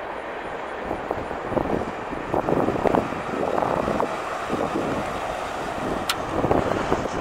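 1996 Ford Bronco driving past, an uneven rush of road and engine noise with wind buffeting the microphone, and a single sharp click about six seconds in.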